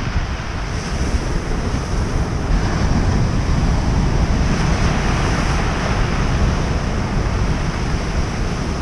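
Ocean surf breaking and washing up a pebble beach, with wind buffeting the microphone. The wash swells a little about halfway through.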